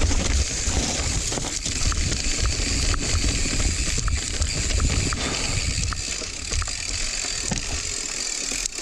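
Rocky Mountain Altitude mountain bike riding down a loose, dry dirt trail: a steady rumble of tyres on dirt and wind on the camera mic, with scattered small clicks and rattles from the bike.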